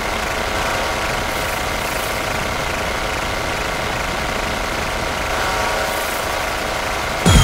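Breakdown in a dark psytrance track: with the kick drum and bass gone, a steady, mechanical-sounding synth drone of many held tones over a noisy hiss plays on. The kick and bass crash back in just before the end.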